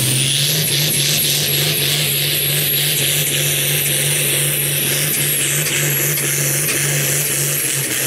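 International Harvester Pro Farm pulling tractor's turbocharged diesel engine held wide open under full load as it drags the weight-transfer sled: a steady, heavy drone at constant pitch with a high turbo whistle above it.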